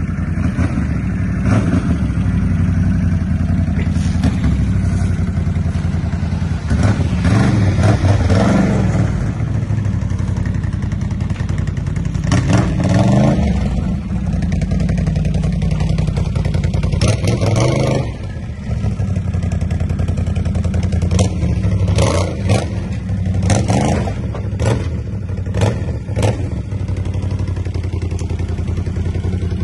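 ATV engine running and revving in several surges as the machine is driven up to be loaded, with clattering knocks over a steady engine rumble.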